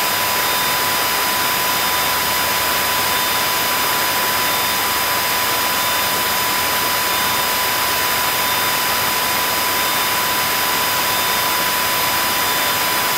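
Steady drone of a light airplane's engine, propeller and rushing air heard inside the cockpit, with a thin steady high tone over it.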